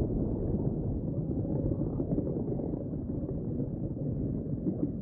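Steady low rumbling noise with no clear pitch, easing slightly in level toward the end.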